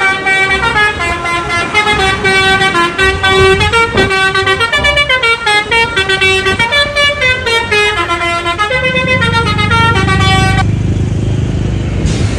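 Bus telolet horn (Basuri multi-tone musical horn) playing a stepping tune of loud pitched notes for about ten seconds. Near the end the tune stops and a low rumble with hiss carries on.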